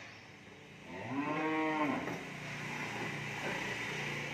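A cow moos once, about a second in: a single call lasting about a second that rises and then falls in pitch.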